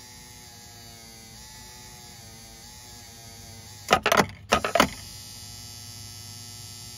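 Volvo Penta SX-A power trim/tilt pump's electric motor running with a steady electric hum, spinning freely again after cleaning. About four seconds in, a short burst of loud clattering knocks as the motor is switched to the other direction and shakes on its mount, then the hum carries on.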